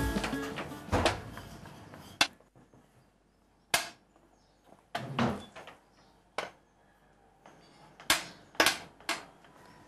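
Dishes and utensils being handled: a string of separate sharp knocks and clinks at uneven spacing, about eight in all, with background music fading out in the first two seconds.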